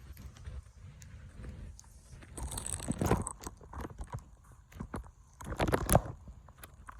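Crunching and crackling steps in snow, coming in two bursts, about two and a half seconds in and again near six seconds, over a low rumble.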